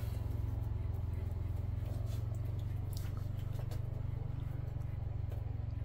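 A steady low hum throughout, with faint scattered clicks and mouth sounds of someone chewing a large bite of food.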